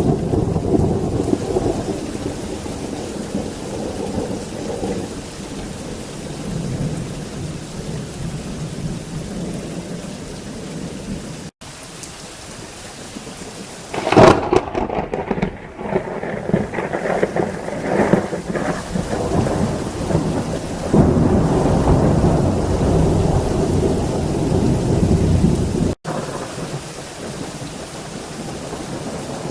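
Heavy thunderstorm: steady heavy rain with thunder rolling throughout. About halfway through a sharp, loud thunderclap breaks out and rumbles on for several seconds.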